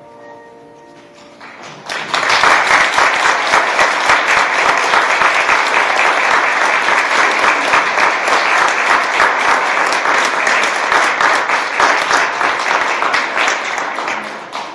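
A congregation applauding, many people clapping at once. The applause breaks out about two seconds in, as the last held notes of music die away, and tapers off near the end.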